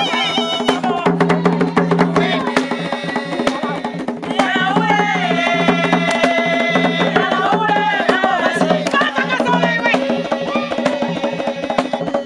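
Dance music: a sung melody over a busy beat of drums and percussion.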